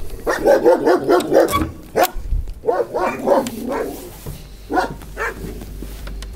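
A dog barking: a quick run of barks, another run a little later, then a few single barks.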